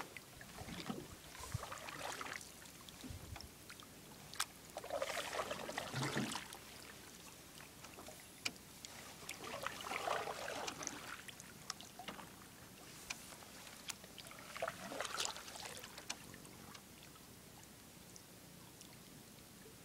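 Canoe paddle strokes in calm water: a swish and drip of water about every four to five seconds, with a few sharp ticks between them. The strokes die away near the end.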